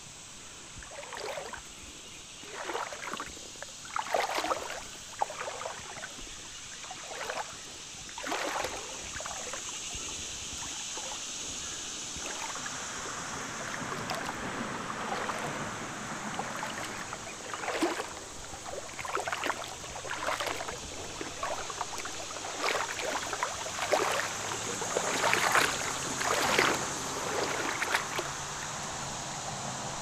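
Shallow creek water over gravel, splashing and sloshing in irregular short bursts about every second or so, over a steady high hiss.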